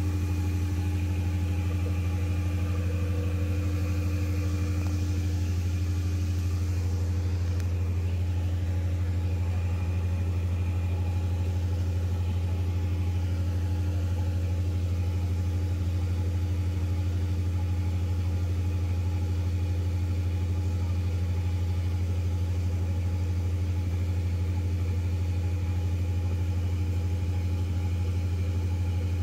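Large natural-gas generator engine running steadily under load, a low, even drone.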